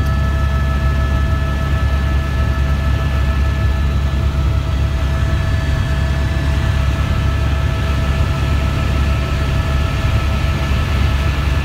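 Helicopter in flight, heard from inside the cabin: a loud, steady deep rumble with a steady whine over it.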